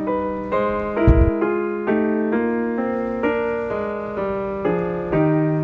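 Background piano music, a slow run of single held notes. A brief low thump about a second in.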